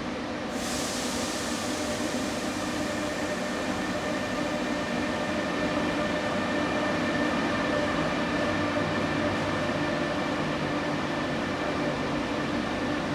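High-speed train running steadily: a continuous rumble and hiss with a few held humming tones, slightly louder midway.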